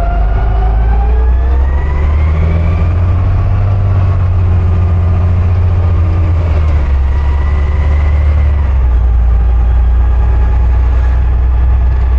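Garbage truck engine heard from inside the cab as the truck pulls away and drives on, a steady low hum with a whine that rises in pitch over the first few seconds as it gathers speed, then settles and shifts again later on.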